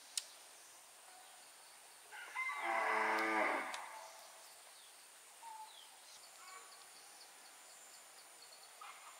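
A cow mooing once, a long low call of about two seconds starting a couple of seconds in. Faint high chirps follow later.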